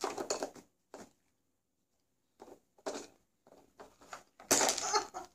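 A boxer dog working a plastic Nina Ottosson Dog Casino puzzle toy: a series of short scraping, clattering noises as it noses and paws at the toy and its drawers, the loudest about four and a half seconds in.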